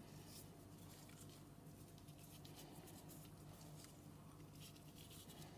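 Near silence: a faint steady room hum with a few faint ticks.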